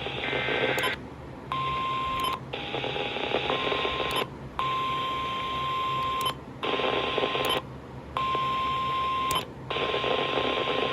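NOAA Weather Radio emergency alert over radio static: the tail of the SAME data burst, then the steady warning alarm tone near 1 kHz, broken by several short dropouts.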